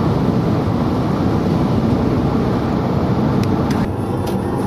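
Steady rumble of a car driving: road and engine noise.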